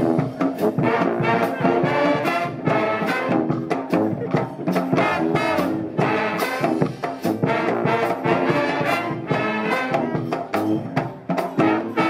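Brass band playing an upbeat tune: trumpets, trombones, saxophone and sousaphone over a steady bass drum and cymbal beat.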